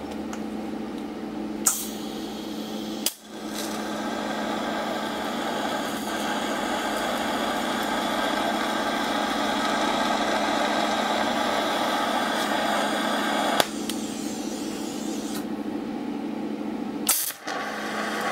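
DC TIG welding arc running steadily with a hiss on a taper bearing's steel outer race, melting the race's base metal without filler rod so it shrinks free of the bore. A sharp click comes near the start, and the sound breaks off briefly about three seconds in, then runs louder, with another short break near the end.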